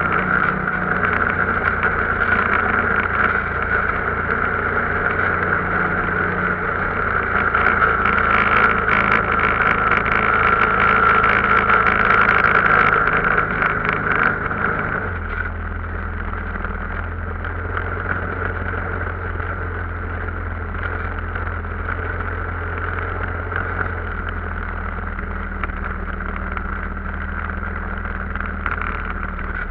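Arctic Cat vehicle engine running steadily while under way. About halfway through, the sound drops a little and settles into a lower, steadier hum, as when the throttle is eased off.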